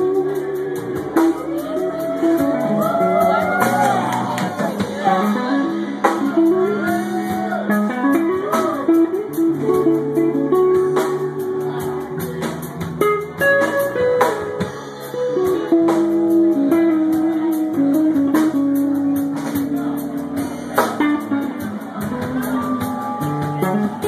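Live band playing: electric guitar over bass guitar and drums, with bending guitar notes and a steady drum beat.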